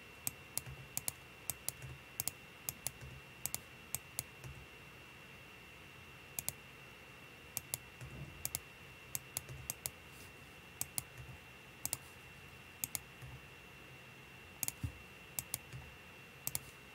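Computer mouse clicks and keyboard key presses: irregular sharp clicks, many in quick pairs, scattered throughout, over a faint steady high-pitched tone.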